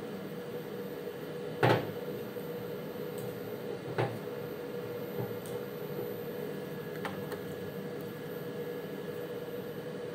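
Steady hum of running lab equipment, broken by two sharp knocks about two seconds apart, the first the loudest, and a lighter click later on.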